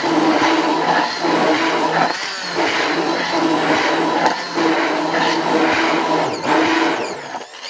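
Braun immersion hand blender running in a tall plastic beaker, blending frozen bananas and milk into a milkshake. The motor hum dips briefly about every two seconds and spins down near the end.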